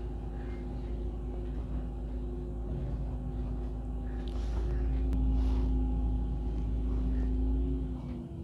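Steady low rumble and engine hum of a moving vehicle heard from inside, growing louder about halfway through and easing off shortly before the end.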